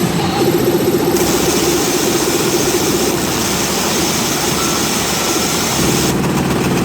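Symphogear pachinko machine playing its jackpot sound effects over a loud, steady din, with a bright hiss that comes in about a second in and drops out near the end.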